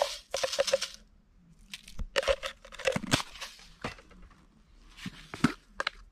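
Plastic seasoning jars being handled: MSG granules shaken from a plastic jar and screw caps twisted off and on, giving short crackling rattles and clicks in several bursts.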